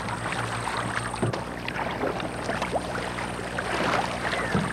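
Canoe paddles pulling through flat water in a few strokes, with soft swishes and water noise along the hull, over a steady low hum.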